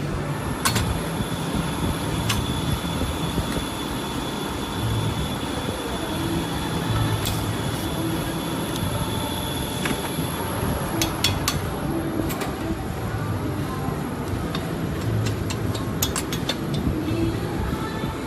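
Cordless drill driving the shaft of a single-punch tablet press, with a steady mechanical rumble and a thin whine that stops about ten seconds in. Several sharp metal clicks follow in the second half.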